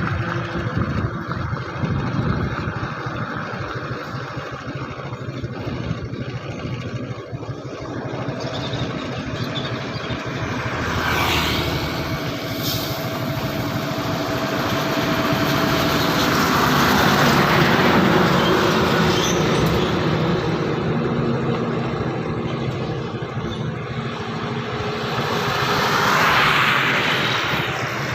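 Traffic on a highway: vehicles passing close by one after another, engine and tyre noise swelling and fading with each pass. The loudest passes come about two-thirds of the way through and again near the end.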